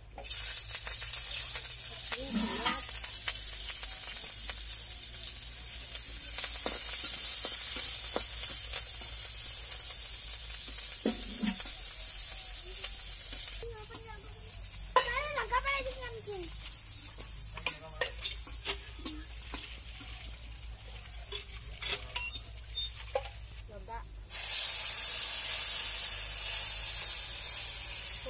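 Chopped onion and green chilli hitting hot oil in a metal kadai and sizzling, stirred with a metal spatula that clicks and scrapes against the pan. The sizzle eases off about halfway through, leaving mostly scraping clicks, then a fresh, louder sizzle starts about 24 seconds in.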